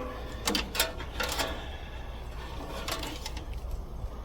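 A few light clicks and rattles of wires and small metal parts being handled, over a low steady hum.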